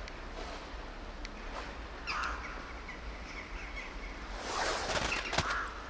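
Outdoor background noise with faint bird chirps about two seconds in, then a burst of rustling and scuffing over the last second and a half.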